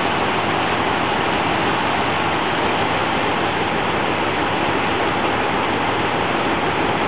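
Steady rush of wake water and wind aboard the Watson-class motor lifeboat Canadian Pacific under way, with its engine running beneath.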